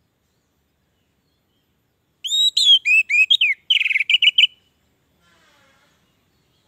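Orange-headed thrush singing one quick phrase of whistled notes that slide up and down, ending in a fast trill; it starts a little over two seconds in and lasts about two seconds.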